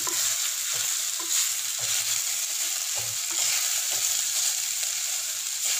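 Chopped ginger and dal sautéing in hot oil in a clay pot, a steady sizzle, while a wooden spatula stirs and scrapes through it with soft knocks against the pot now and then.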